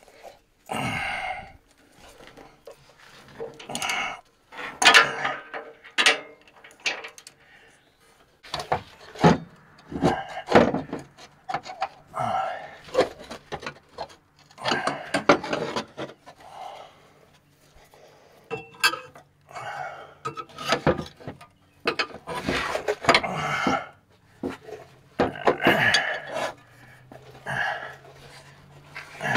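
Irregular hand-tool work on metal truck parts: repeated knocks and clanks mixed with scraping and rubbing, coming in uneven bursts with short pauses between.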